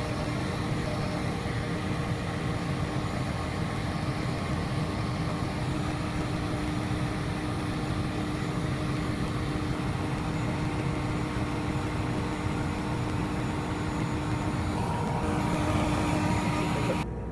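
CNC router spindle and shop vacuum running steadily while a V-bit engraves the workpiece: a steady mechanical noise with a constant hum and whine. The noise drops off sharply shortly before the end.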